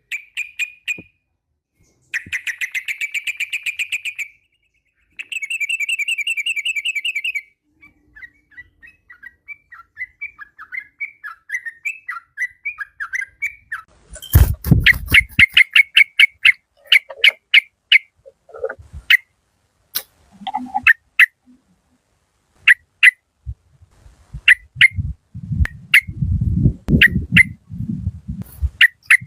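Yellow-vented bulbul calling: two fast rattling trills, then soft scattered chatter, then a long run of sharp, repeated chirps. A loud knock comes about halfway through, and a low rumbling noise runs under the chirps near the end.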